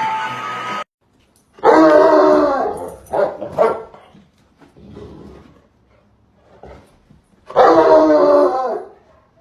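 A dog vocalising in drawn-out barks: a long call with falling pitch, a couple of short ones, faint quieter sounds, then another long call near the end.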